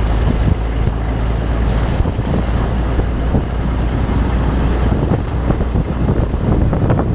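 1919 Studebaker running on the road, heard from aboard the open car: a steady low engine-and-road rumble with loose rattling and clatter, and wind buffeting the microphone.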